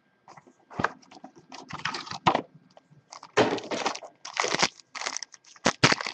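A box of trading cards being opened and handled: a run of irregular scratchy crinkling and tearing of its packaging, with a few sharp louder snaps.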